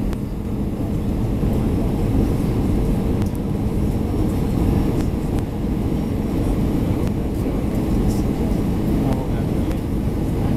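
Steady low rumble inside the cabin of an Airbus A320 on approach: engine and airflow noise heard from a window seat, with a faint steady hum.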